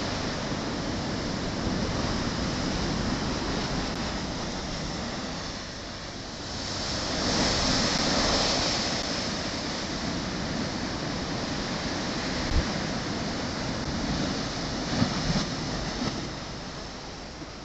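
Small waves breaking and washing up a sandy beach: a steady rushing hiss of surf that swells louder as a wave breaks about seven to nine seconds in.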